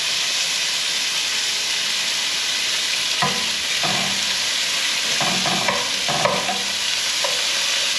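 Thick-sliced bacon sizzling in a hot skillet, a steady frying hiss, with a few short scrapes of a wooden spatula moving the bacon around the pan from about three seconds in.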